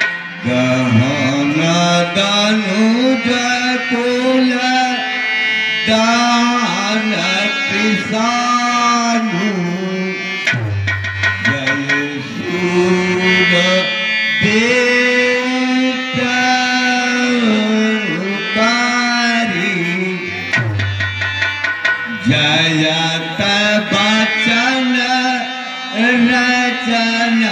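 Indian music: tabla-style hand drumming under a melodic line that slides and bends in pitch, played without a break.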